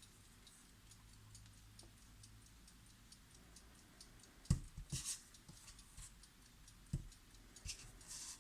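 Blessing digital alarm clock ticking faintly and quickly at an even pace. A few louder low knocks come in around the middle and once more later.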